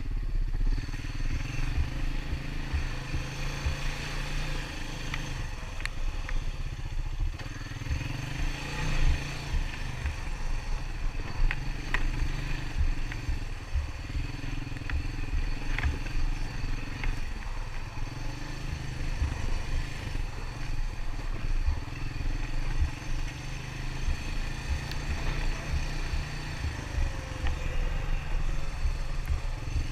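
ATV engine running steadily as the quad rides along a trail, a constant low rumble with a few faint clicks.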